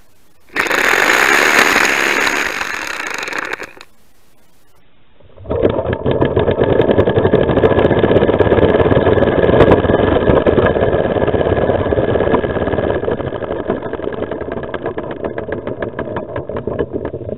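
A loud hiss of about three seconds. Then, after a short pause, a toy car's compressed-air piston engine runs fast with rapid chuffing and a thin whine, the pulses spacing out near the end as the air pressure runs down.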